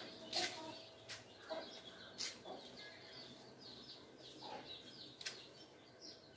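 Faint chicken clucks with many short, high bird chirps and a few sharp clicks.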